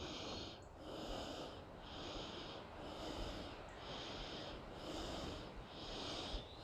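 A person breathing hard and in a steady rhythm, about one breath a second, winded from hiking.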